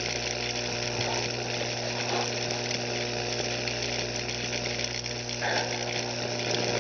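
High-voltage arcs from a 15,000-volt supply buzzing and sizzling where the electrodes touch a chicken egg, over a steady electrical hum.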